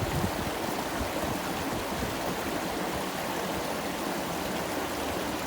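Shallow stream water flowing steadily over and around rocks, with a brief low bump just after the start.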